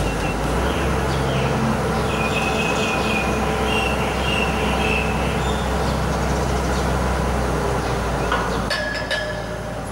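Boat travel lift's engine running steadily with a deep hum, and a high, wavering squeal from about two seconds in that lasts a few seconds. The engine note drops near the end, with a few clicks.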